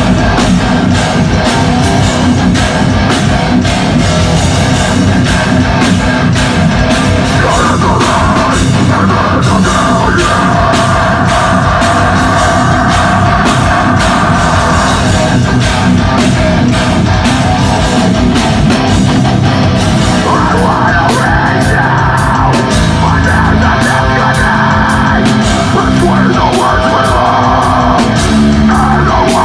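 Deathcore band playing live and loud: heavily distorted electric guitars and a drum kit, with a vocalist screaming over them.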